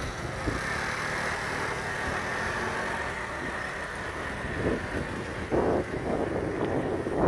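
Street traffic at a wet city junction: motor scooters and a city bus moving through, a steady hiss with a low rumble. A few louder muffled bursts of noise on the microphone in the second half.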